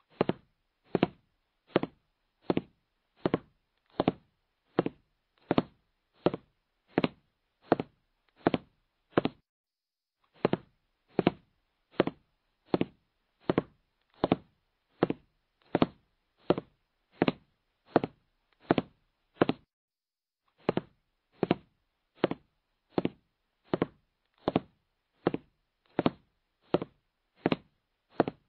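Countdown timer sound effect ticking: one short dull tick about every three quarters of a second, with a pause of about a second roughly every ten seconds.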